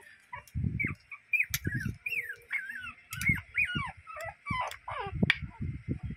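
Young puppies squeaking and whining again and again in short high calls, about three a second. Under them are dull knocks of a metal spoon crushing oregano leaves against a ceramic plate.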